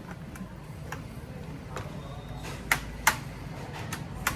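A few light clicks and taps of a laptop's plastic case and parts being handled during disassembly, with two sharper clicks close together a little under three seconds in, over a low steady hum.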